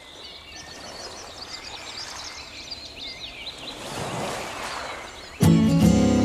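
Birds chirping over a rising wash of noise, then about five seconds in a loud sustained music chord comes in suddenly and holds.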